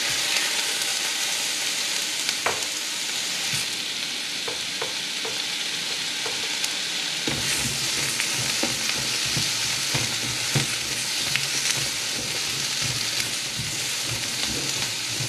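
Chopped onion sizzling in a very hot frying pan: a steady hiss with scattered pops and crackles. A low hum joins about seven seconds in.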